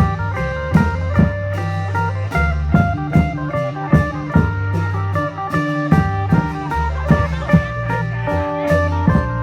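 Isan folk music: a phin, the Lao-Thai plucked lute, playing a quick melody over sustained bass notes and klong yao long-drum beats, about two beats a second.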